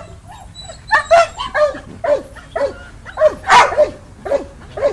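A dog barking and yelping in a rapid run of short calls, each falling in pitch, loudest about three and a half seconds in.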